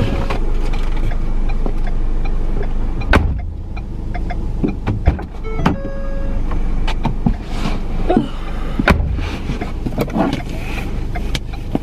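A car's driver door being opened and shut as the driver gets out and back in, with several sharp knocks and two short steady beeps over a steady low rumble.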